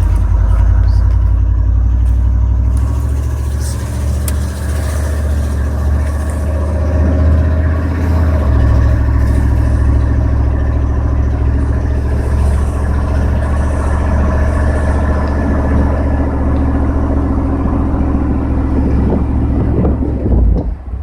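The 5.7-litre V8 of a 1994 GMC Sierra 3500 pickup running as the truck is driven, a steady low drone whose pitch steps at about 3 seconds and again at about 8 seconds in. It drops off briefly near the end.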